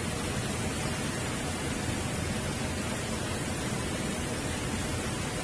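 Steady rush of a river's current flowing over rocks.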